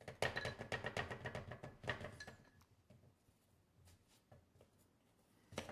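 Rapid light clinking against a container of copper chloride solution for about two and a half seconds, with a faint ringing tone, then a single click near the end.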